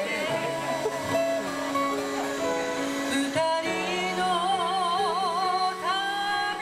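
Live song: a woman singing to stage keyboard and guitar accompaniment. Past the middle she holds a note with wide vibrato, then slides up to a higher note near the end.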